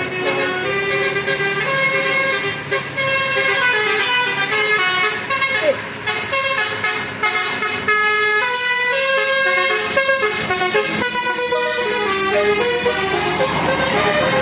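Bus 'telolet' musical air horns playing a tune: several horn notes sounding together and switching pitch in quick steps.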